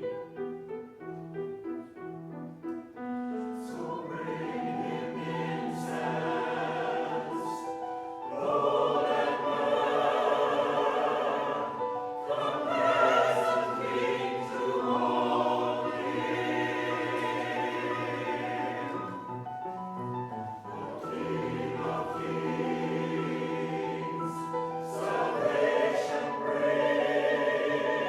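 Church chancel choir singing a Christmas choral piece in parts, growing louder about eight seconds in and swelling again near the end.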